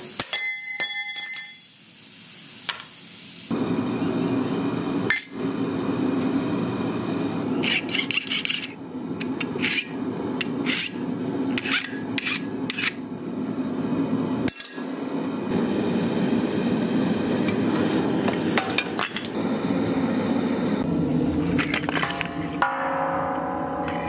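Steel clinking and knocking as a lawnmower blade is handled and struck on a vise and an anvil, with separate ringing clinks at first, then about a dozen sharp knocks over a steady low rumble.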